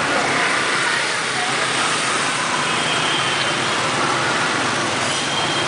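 Steady city street traffic: a continuous hum of motorbike and car engines with road noise around a moving pedal cyclo.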